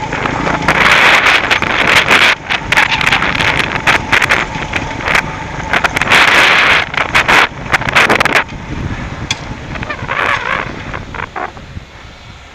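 Beta Alp 200 trail motorcycle descending a rocky, loose-stone track: a constant rushing noise with many sharp knocks and rattles as it jolts over the stones. It quietens a little after eight seconds in, leaving fewer, scattered knocks.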